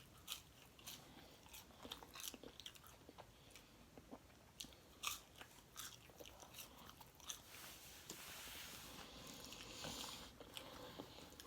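Close-up chewing and biting of fried food, a run of small wet mouth clicks and crunches. A soft hiss comes in for the last few seconds.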